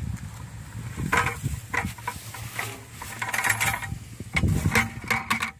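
Irregular rustles and light knocks from a plastic tub with wood shavings being handled and tipped out onto grass, in scattered clusters.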